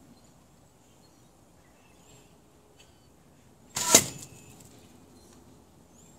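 A longbow arrow shot: about four seconds in, a single brief, sharp whoosh and smack as the arrow arrives at the string-hung target.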